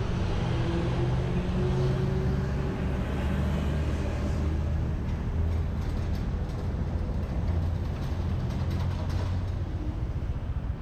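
Motorbike engine slowing to a stop and then idling steadily, with a low, even hum.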